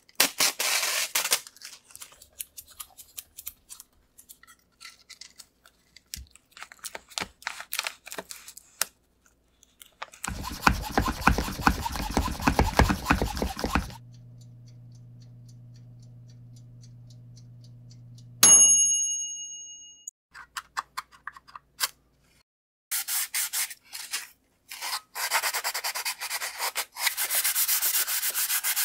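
Plastic film peeled and crinkling off a cured carbon fiber part, then about four seconds of loud hissing noise. A countertop oven runs with a low steady hum that stops about 18 seconds in with one bright ringing ding of its timer bell, marking the end of the bake. Near the end comes repeated rubbing and sanding on the edges of a cured carbon fiber part.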